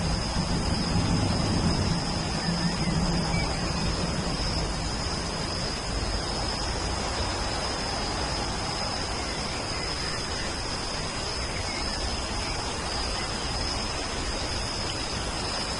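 Steady rain falling, an even hiss with a constant high-pitched tone running underneath.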